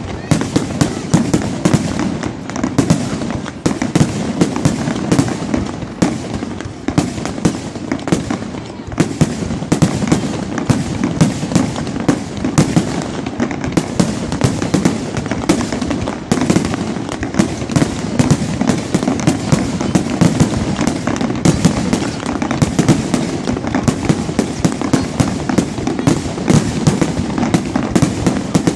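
Fireworks going off in a continuous barrage: rapid, irregular bangs and crackles over a steady low rumble, with no let-up.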